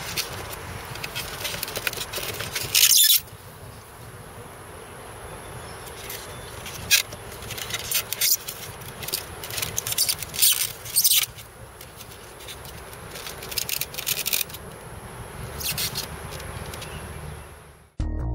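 Drone parts and accessories being handled and pulled out of a hard case's polystyrene foam inserts: short scrapes and rubs of plastic against foam, the loudest about three seconds in, over a steady high-pitched hum. Music cuts in near the end.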